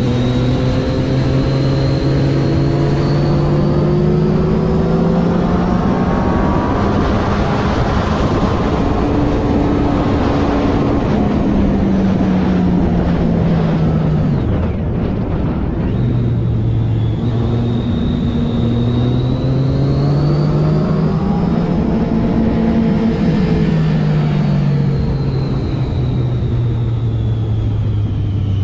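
Triumph Daytona 675R's three-cylinder engine under way, its pitch climbing and then falling off twice as the bike accelerates and slows, over a steady rush of noise.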